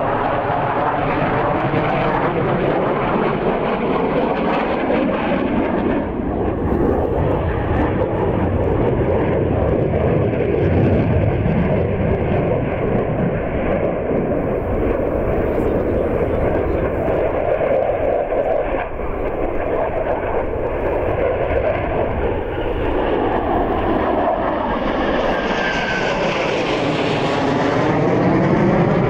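Two MiG-29 fighter jets' twin RD-33 turbofans heard in flight: a continuous jet rumble with a slowly sweeping, phasing tone. It grows louder and brighter in the last few seconds as the pair comes closer overhead.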